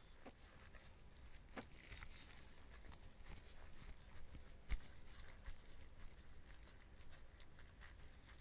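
Gloved hands kneading butter mixed with dashi fish powder: soft sticky squelching and glove rubbing, with a sharper knock just under five seconds in.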